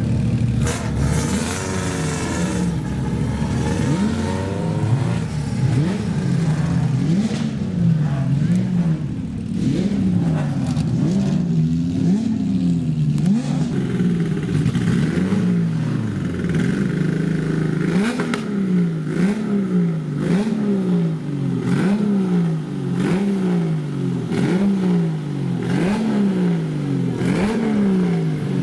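Racing car engine being revved hard over and over, its pitch climbing and dropping back about once a second in an even rhythm.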